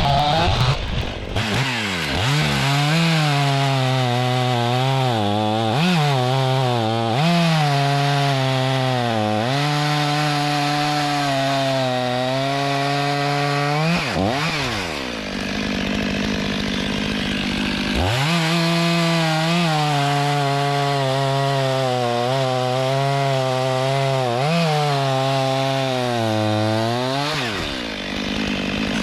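Chainsaw cutting through a log at full throttle, its engine note sagging and recovering again and again as the chain bogs in the wood. For a few seconds around the middle it drops back to idle, then revs up and cuts again.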